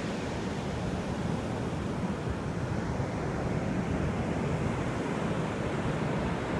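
Steady rush of ocean surf on the shore, with wind buffeting the microphone.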